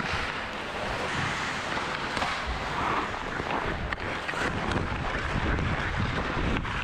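Ice skates scraping and gliding on rink ice, with wind rushing over the microphone and a few sharp clicks of a hockey stick handling the puck.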